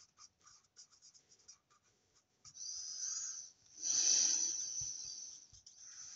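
Stampin' Blends alcohol marker rubbing over a small die-cut cardstock flower as it is coloured in. Faint ticks come first, then longer scratchy strokes from about two and a half seconds in; the loudest, fullest one is around four seconds in.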